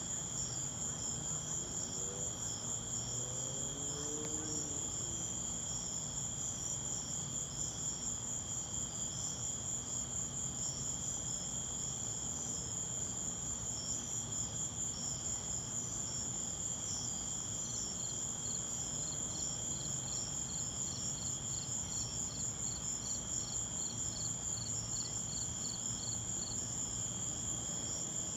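A chorus of crickets and other night insects singing steadily, a high continuous pulsing trill with a second, lower one beneath. Partway through, another insect joins with a slower chirp of about two a second.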